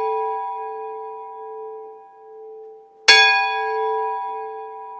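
A bell-like chime ringing and slowly fading, struck again about three seconds in and ringing out once more.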